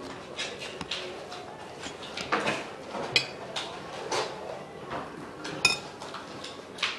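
Irregular clatter and knocks of tableware on a table, with two short, high clinks about three seconds and five and a half seconds in.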